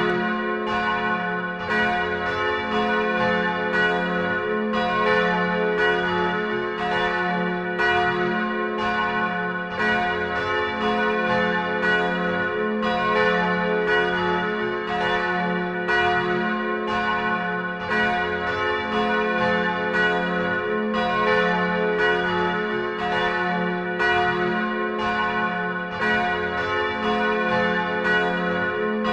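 Church bells pealing, several bells swinging together, each struck again less than a second after the last, their tones overlapping and ringing on. It is the ringing-in before a Sunday service.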